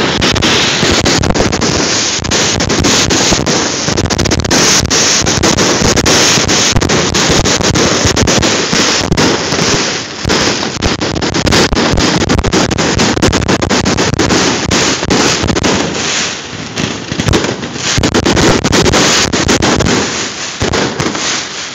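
Fireworks display at close range: a dense, continuous barrage of loud bangs and crackles, many reports a second, easing off briefly about halfway through and again later.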